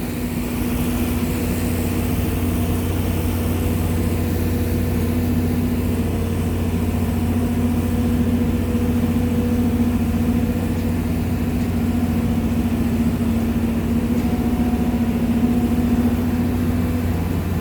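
Skid steer loader's engine running steadily while the machine backs up, a constant mechanical hum that swells slightly about a second in.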